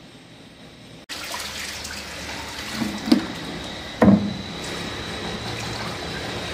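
Water spraying and splashing during the washing of a split air-conditioner unit: a steady hiss that starts abruptly about a second in, with a faint steady high whine and two knocks, about three and four seconds in.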